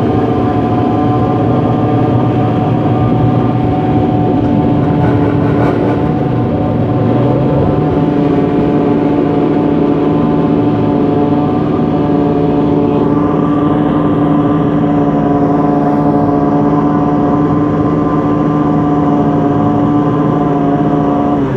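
Racing motorcycle engine running at a constant speed: a loud, even drone whose pitch does not change.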